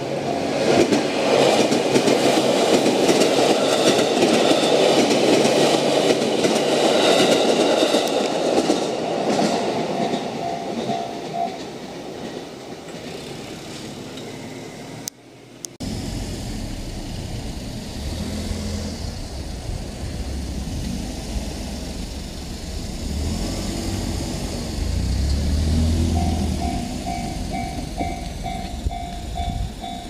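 A JR Ryomo Line train runs loudly over a level crossing while the crossing bell rings in quick, even strokes; the bell stops as the train noise fades. After a sudden cut, a train's low rumble is heard, and the crossing bell starts ringing again near the end.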